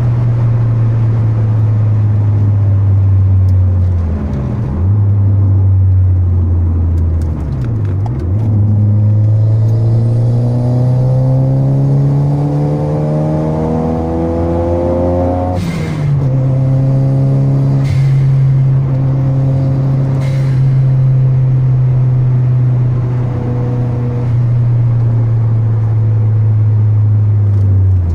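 Toyota Celica GT-Four's turbocharged four-cylinder engine heard from inside the car while driving: a steady engine note that dips briefly twice, then rises steadily as the car accelerates. About fifteen seconds in the note drops suddenly with a short hiss, the blow-off valve venting as the throttle closes, and the engine settles back to a steady cruise.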